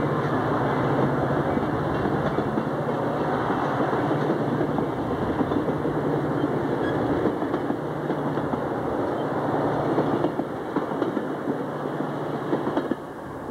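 Metra bilevel commuter cars rolling past close by, a steady rumble of wheels on the rails. The noise drops away in two steps near the end as the last car passes.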